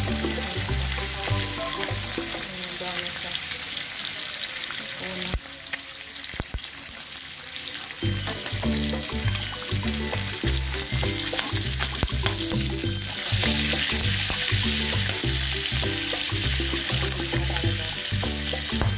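Bacon strips sizzling and spitting in hot oil in a nonstick wok, a steady hiss that grows louder about two-thirds of the way through. Background music with a steady beat plays underneath, dropping out for a few seconds about five seconds in.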